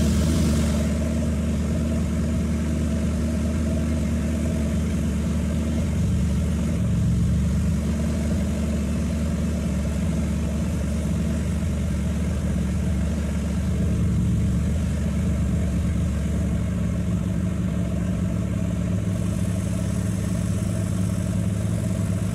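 Turbocharged Nissan Hardbody pickup's engine idling steadily under the open hood, with two slight swells in the idle.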